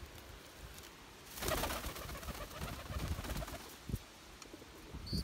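Domestic pigeons cooing softly, with a brief rustle about a second and a half in.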